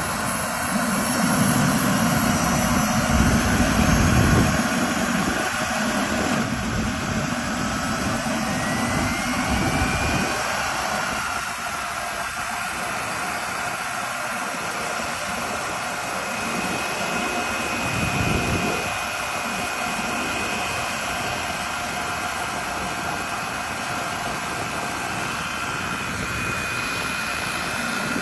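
Small gas-turbine engine of a large scale-model remote-controlled helicopter running with a steady high whine. Its pitch rises about nine seconds in, and heavy low rumbles come and go a few times.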